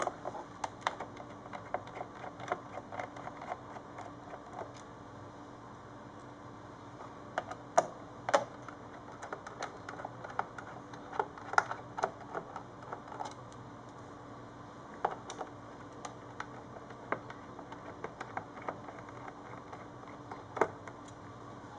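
Irregular light clicks and taps of a precision screwdriver working small screws out of the plastic base of a Ubiquiti UniFi AP-AC access point, with the screws set down on the table.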